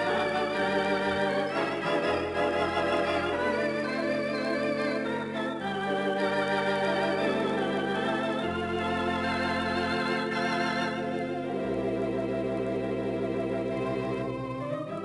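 Theatre organ playing sustained chords with a wavering tremulant, over low bass notes that change every second or two.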